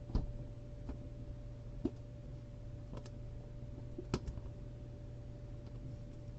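A few faint, separate clicks and taps, roughly one a second, over a low steady hum.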